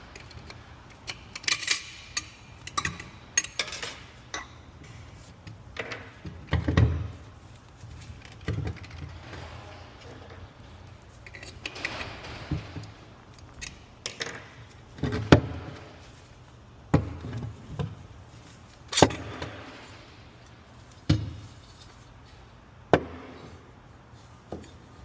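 Metal parts of a failed Porsche PDK dual-clutch basket clinking, rattling and knocking irregularly as it is handled, a sign of loose or broken internals; the sound is described as not sounding very nice.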